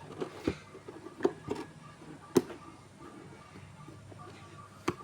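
Unboxing handling noise: a few knocks and taps of a motherboard box and its packaging being handled, the loudest about two and a half seconds in.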